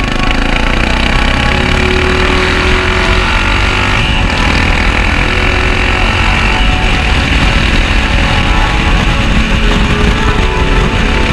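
Yamaha XT660Z Ténéré's single-cylinder engine running steadily through a loud open exhaust fitted without its dB killer.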